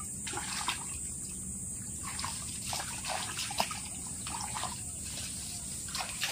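Shallow muddy stream water sloshing and splashing as a round hand net is scooped and dragged through it, with irregular small splashes over a steady trickle of running water.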